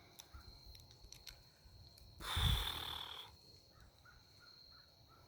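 A person's sigh close to the microphone, about two seconds in and lasting about a second, with a low breath thump at its start. Under it, a steady high-pitched insect drone from crickets.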